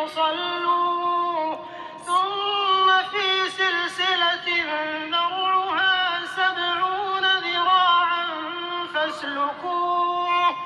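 A single voice reciting the Quran in melodic tajweed, with long held notes that step up and down and a short breath about two seconds in.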